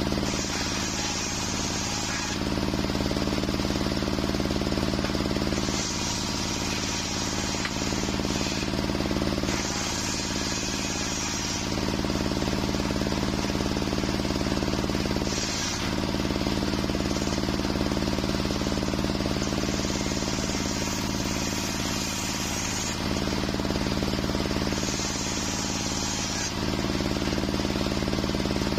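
Large circular saw blade of a homemade sawmill ripping waru (sea hibiscus) timber, with a steady machine hum beneath it. The hiss of the cut comes and goes every few seconds as the boards pass through.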